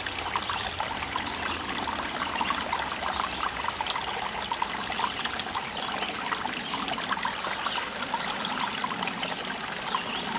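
Small creek babbling steadily over rocks, a continuous trickling and splashing of running water.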